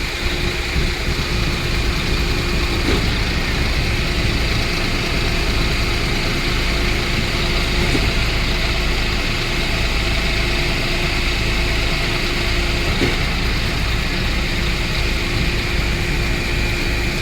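Concrete pump truck running steadily under continuous engine noise, with a steady whine that breaks briefly about every five seconds.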